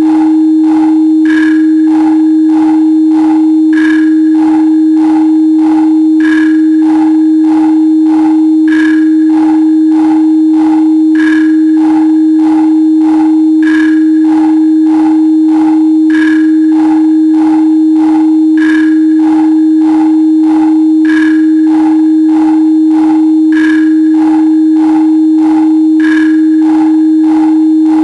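Electronic sine tone at 314.15 Hz (the 'pi frequency') held steady, with a synthesized beat of short blips at 97 beats a minute layered on top. A higher blip marks an accent about every two and a half seconds.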